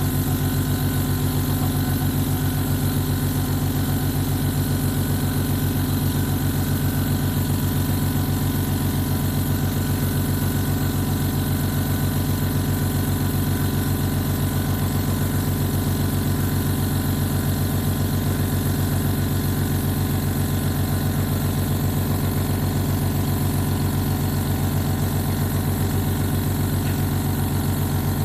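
Hyundai 24-litre, 750 W "silent" air compressor running steadily as it pumps up its tank, a constant motor drone with an even low hum.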